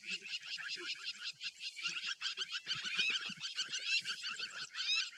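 A dense chorus of fast, high chirps, about eight a second, from wild animals, with a few short rising whistle notes about three and five seconds in.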